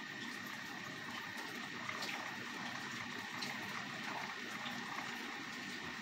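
Magnetic stirrer running under a beaker, the stir bar swirling the liquid in a steady wash, with a thin steady high tone throughout and a few faint ticks.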